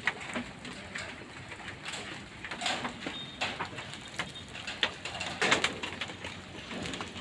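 First scattered raindrops of a downpour hitting a corrugated zinc roof: irregular sharp taps and pings, a few louder than the rest.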